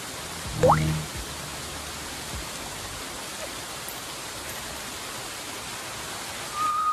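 Steady rush of a rock waterfall cascading into a pond. About half a second in, a person gives a short squeal that rises sharply in pitch, and a brief high vocal note sounds near the end.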